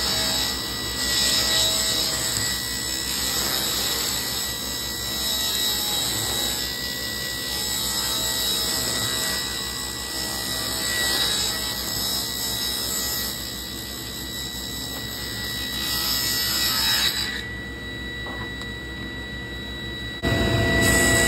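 Table saw running and ripping a thin strip of wood trim, the blade cutting steadily through the board. The cutting sound thins out about 17 seconds in as the cut ends, and the sound steps up louder again near the end.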